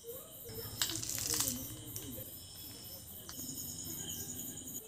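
Crickets chirping steadily in the background, a high pulsing trill. About a second in, a brief rustling hiss, the loudest sound here, as dry powder is scattered by hand over mashed potato in a steel bowl.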